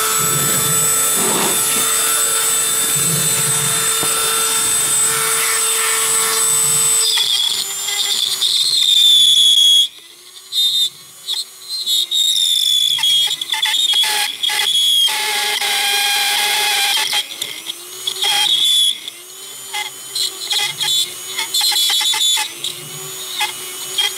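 Handheld rotary tool with a burr grinding into a toe crack in a training hoof to open up the cavity. It runs at a steady high whine for about seven seconds, then its pitch dips and wavers as the burr bites, with several short breaks around the middle.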